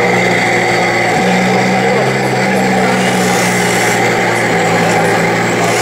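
Steady engine sound of 1:16-scale RC tanks running, with a low hum that dips briefly about a second in.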